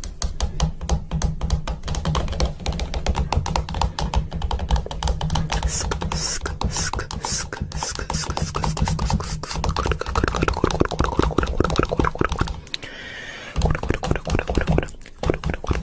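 Rapid percussive mouth sounds in the manner of beatboxing: fast clicks over a low hum, with four short hisses about six seconds in.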